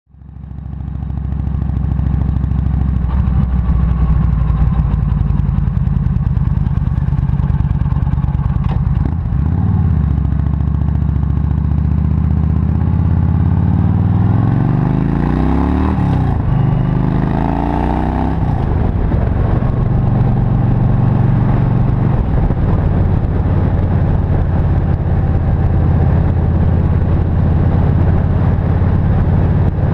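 Yamaha XVS 1300 V-twin with a Cobra slip-on exhaust, riding under way. About halfway through, the engine note rises twice with a gear change between, then holds steady at cruising speed.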